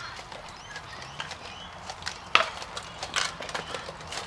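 Rattan swords striking shields and armour in a sparring bout: a few sharp knocks, the loudest about halfway through and several more near the end.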